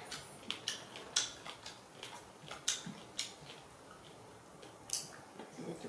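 A macaque eating fried fish and rice: scattered short, sharp clicks and smacks of chewing and handling food, at irregular intervals, a few close together and others a second or more apart.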